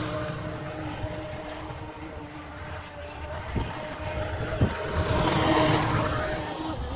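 Heavy-equipment diesel engine running, with a steady whine over the engine rumble and two short clunks in the middle; it grows louder in the second half.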